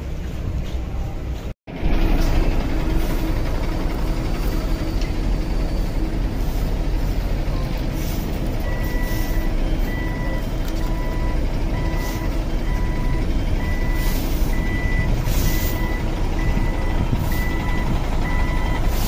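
Steady low rumble of vehicles in a bus yard, and from about halfway through a vehicle's reversing alarm beeping about once a second. The sound drops out briefly near the start.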